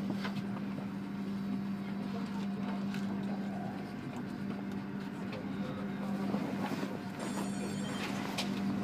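Interior of a passenger train carriage rolling slowly out of a station: a steady low hum over the rumble of the running train, with a few faint clicks and knocks, one near the start and one near the end.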